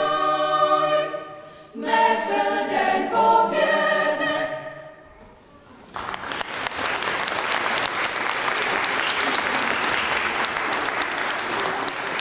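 A choir sings the closing phrases of a song; the last chord fades away about five seconds in. About a second later the audience breaks into steady applause.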